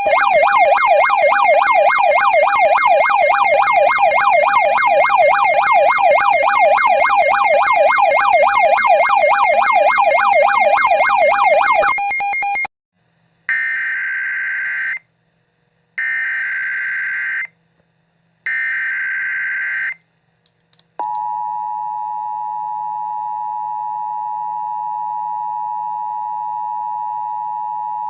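A fast warbling siren-like alert tone, sweeping up and down several times a second over a steady tone, stops about twelve seconds in. It is followed by three short screeching bursts of Emergency Alert System SAME header data. About a second later the steady two-tone EAS attention signal (853 and 960 Hz) starts and holds on.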